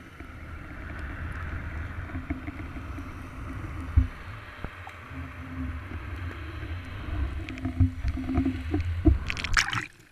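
Underwater camera housing hanging in the sea and being brought up: a low rumble of water moving against the housing with an on-and-off hum, then a short burst of splashing as it breaks the surface near the end.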